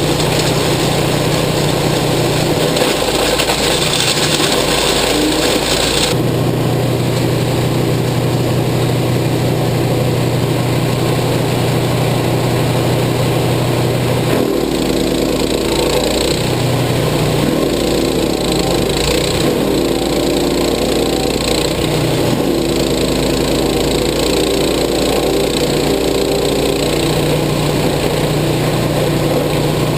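A chipper shredder's 13 hp Lifan gasoline engine running loudly and continuously, its note shifting several times.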